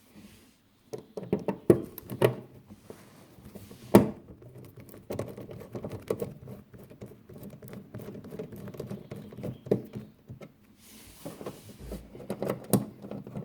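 Screws being worked out of a Miele dishwasher's bottom cover with a screwdriver: irregular clicking and scraping against the panel, with several sharp knocks as tool, screws and cover are handled.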